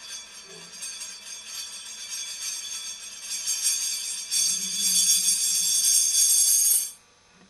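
Drilled metal brake disc spinning down on a wooden floor, rolling on its rim with a metallic ringing rattle that grows louder as it settles flat, then stops abruptly near the end.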